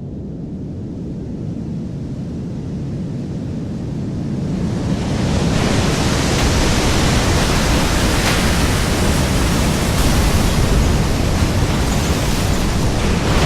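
Designed tsunami sound effect of a wave hitting a coastal city: a deep rumble swells, then about five seconds in a loud rushing wash of water comes in and keeps going.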